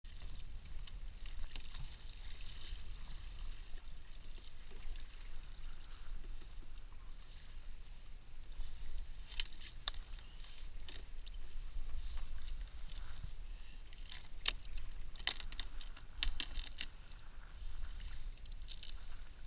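Steady low wind rumble on the microphone, with scattered small sharp clicks and taps from fishing tackle being handled, most of them in the second half.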